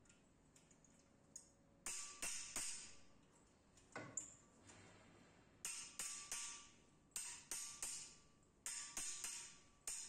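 Hammer tapping on a steel strut-channel wall bracket: short groups of three or four sharp, slightly ringing metal strikes, a new group about every one and a half seconds.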